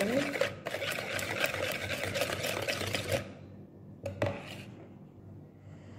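Wire balloon whisk beating runny egg-and-butter batter in a plastic bowl: fast, even strokes of the wires whipping through the liquid and scraping the bowl. The whisking stops about three seconds in, and a single light knock follows about a second later.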